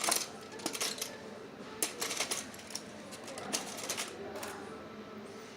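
Irregular small clicks and taps in a few quick clusters, from small hand tools and phone parts being handled during a phone repair.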